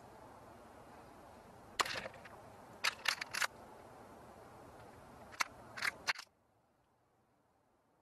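A series of sharp clicks and knocks on a plastic tube bird feeder as animals land and move about on it. There is one knock, then a quick cluster of four about a second later, then three more. Soon after, the faint background hiss cuts off suddenly.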